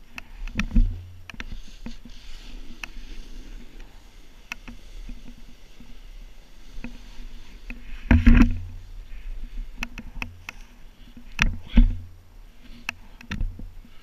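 Snowboard sliding through deep powder snow, heard from the rider's action camera: a steady rushing swish with scattered sharp clicks. Heavy low thumps come about a second in, around eight seconds and twice near twelve seconds.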